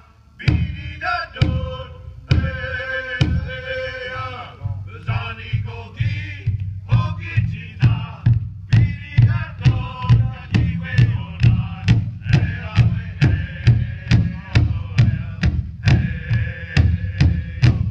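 Powwow drum song: a large drum struck in unison, slowly at first, then in a steady beat of about two strikes a second, with men singing a chanting song over it.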